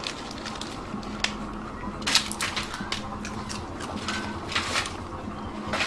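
Dogs crunching biscuits, a few irregular crunches and crackles with pauses between them, over a steady low hum.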